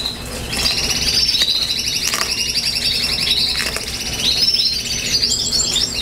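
Several canaries singing at once in rapid, overlapping trills. A few faint clicks of a fork mashing a hard-boiled egg in a plastic bowl come through underneath.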